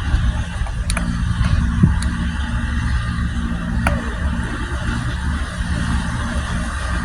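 A steady engine hum under a wash of noise, with a few faint clicks.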